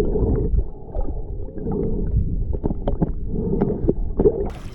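Muffled rushing and sloshing water with scattered knocks, heard through a submerged action camera; just before the end the camera comes out of the water and the sound opens up.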